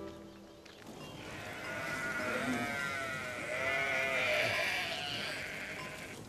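A large flock of sheep and goats bleating, many overlapping calls that build from about a second in, peak midway and then fade.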